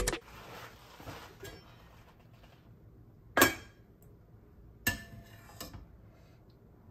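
A metal ladle clinks twice against a stainless steel pot, about a second and a half apart, with a faint scrape as it scoops stew.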